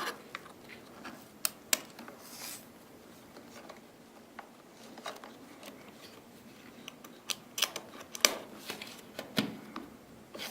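A RAM module being handled and slid into an iMac's memory slot: scattered small clicks and light scraping, with a quick run of sharper clicks about three quarters of the way through.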